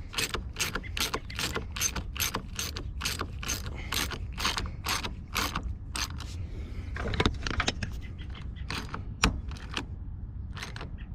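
Socket ratchet clicking as a battery terminal nut is tightened: an even run of about four clicks a second for some six seconds, then a few scattered clicks.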